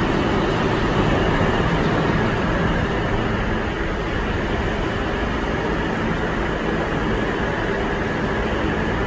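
New York City subway train rumbling steadily somewhere out of sight in the tunnel, over the din of an underground platform; the rumble eases a little about three seconds in.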